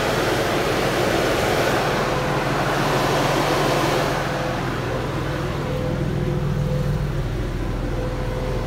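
Porsche 996's electric radiator cooling fans running on high speed behind the front bumper intake, a steady rush over the low hum of the idling water-cooled flat-six. The fans were switched on by the AC button with the coolant at about 110 °C (230 °F), to pull heat out of the engine. The rush is loudest for the first four seconds and eases after that.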